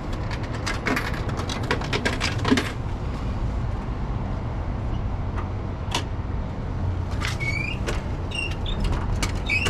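A steady low rumble of city street ambience, with a cluster of clicks and knocks in the first couple of seconds and another sharp click about six seconds in.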